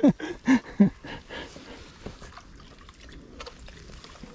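Water dripping and lapping as a stand-up paddleboard paddle dips into the river, with a few faint clicks.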